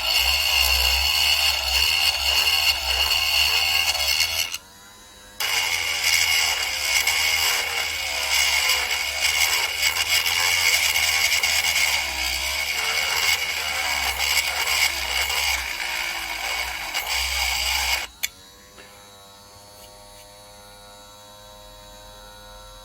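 A small high-speed rotary tool grinding off the rivet on a die-cast toy car's base, running steadily with a high whine, pausing for under a second about five seconds in and stopping about eighteen seconds in. A low electrical hum remains after it stops.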